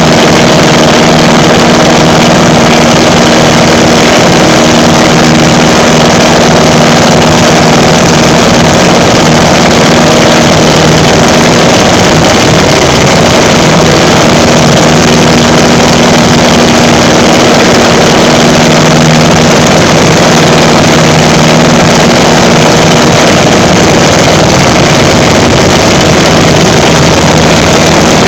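Pietenpol Air Camper's piston engine and propeller running steadily, heard from the open front seat, with a heavy rush of wind over the microphone.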